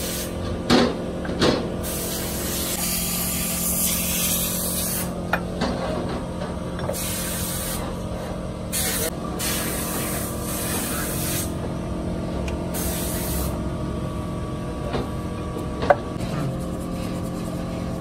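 Sharp metal clinks of a diesel engine's connecting-rod bearing cap being handled, two in the first two seconds and one near the end, over a steady machine hum, with several bursts of hissing a second or so long in between.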